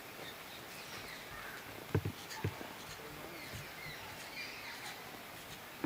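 A kitchen knife cutting rolled dough into pieces, knocking on a round rolling board three times about two seconds in. Faint bird chirps sound in the background.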